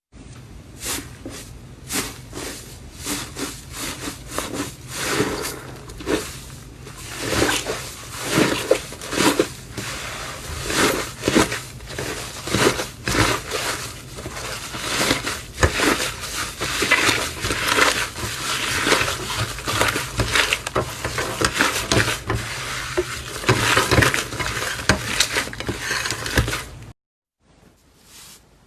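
Slime being squeezed, pressed and stretched by hand: a dense, irregular run of clicks, crackles and pops that stops suddenly near the end.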